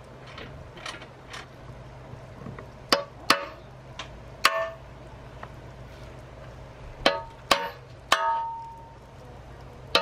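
A hand hammer strikes the aluminum Jeep bumper six times, in uneven pairs, and the last blow rings briefly like metal. A few faint ratchet clicks come first.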